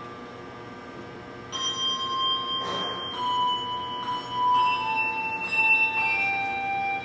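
Handbell choir ringing: a chord fades away, then about a second and a half in, single bells ring one after another in a slow descending line.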